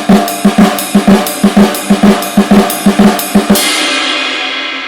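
Drum kit playing a fast, even run of Swiss Army triplets: flammed strokes with the doubles split between snare drum and ride cymbal. The pattern stops about three and a half seconds in on a final hit, and a cymbal rings out and fades.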